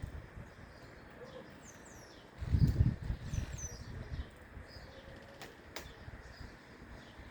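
Outdoor ambience with small birds giving short, high, falling chirps. About two and a half seconds in, a low rumbling burst lasts about a second and a half and is the loudest sound. A couple of sharp clicks follow a few seconds later.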